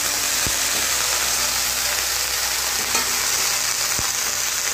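Broccoli florets sizzling as they stir-fry in a metal kadai. A metal spatula stirs them, knocking sharply against the pan about half a second in and again near the end.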